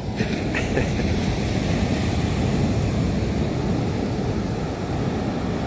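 Steady surf breaking and washing on a sandy beach, with wind rumbling on the microphone.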